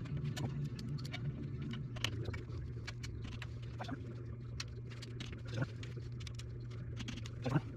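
Scattered light metallic clicks and clinks of hand tools being handled, over a steady low hum.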